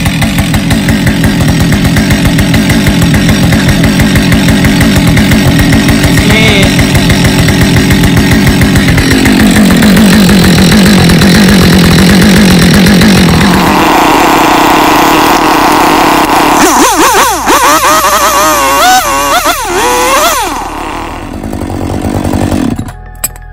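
Husqvarna 545 two-stroke chainsaw running again on its repaired spark plug thread. It runs with a fast, uneven beat, shifts to a higher, steadier note about nine seconds in and rises again near the middle. Later its pitch wavers up and down, and it stops abruptly just before the end.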